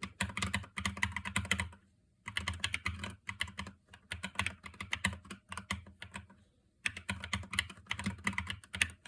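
Typing on a YUNZII KC68 mechanical keyboard with lubed Akko V3 Cream Yellow Pro linear switches and PBT XDA keycaps, dampened by silent-ring, foam and tape mods. The keystrokes come in quick runs of about two seconds with short pauses between them.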